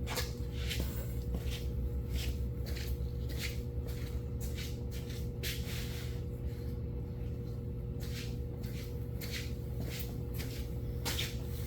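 Electric fuel pump humming steadily while fuel is pushed into the 2150 carburetor, its top off, with irregular rustling and wiping noises over it.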